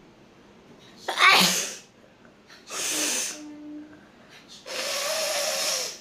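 A woman sneezing, with the loudest sneeze about a second in, followed by two more rushes of breath. The last one is held for over a second.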